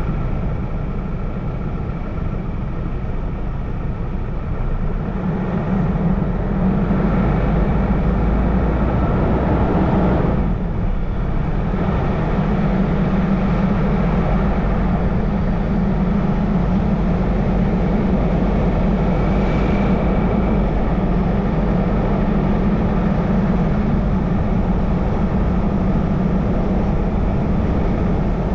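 Car driving along a road: a steady drone of engine and tyre noise, a little louder from about six seconds in.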